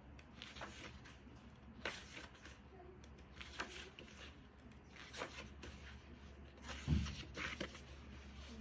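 Glossy photobook pages being turned by hand, a short papery swish every second or two, with a dull thump of the book being handled about seven seconds in.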